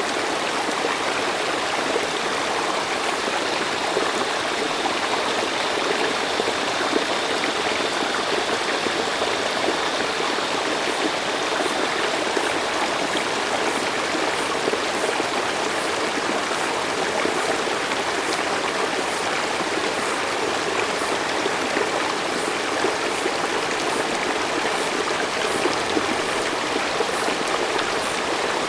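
Mountain stream running steadily: an even, continuous rush of flowing water.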